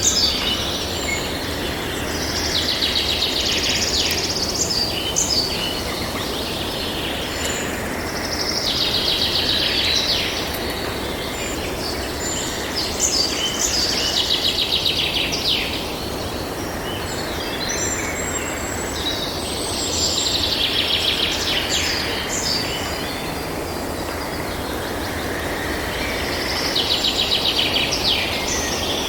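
Tropical forest ambience: scattered bird calls and chirps over a steady background hiss, with a rapid pulsing trill that swells up and fades about every six seconds, five times.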